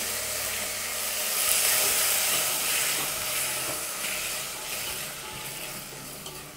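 Chopped tomatoes sizzling in hot oil with mustard seeds and garlic, stirred with a wooden spatula; the sizzle starts loud as the wet tomatoes hit the oil and dies down gradually.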